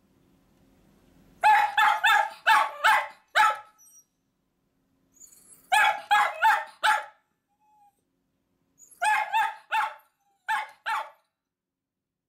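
Miniature dachshund barking at a closed door in three volleys of quick, high barks with short pauses between them: demand barking, wanting to be taken along.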